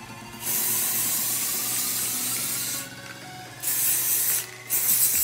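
Aerosol can of green colour hairspray hissing onto hair in three bursts: a long spray of about two seconds, then two shorter ones.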